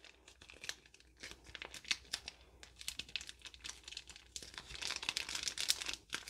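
Plastic sachet of liquid glitter crinkling as it is squeezed and pressed between the fingers to push out the last of the liquid, a run of small crackles that comes thicker and louder near the end.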